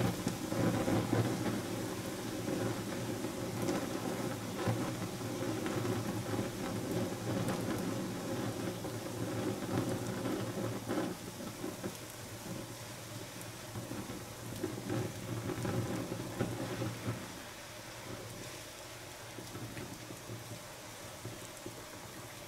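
Popcorn burning in a drinking glass: the flames make a steady rushing noise with a few faint ticks. It slowly gets quieter as the fire dies down.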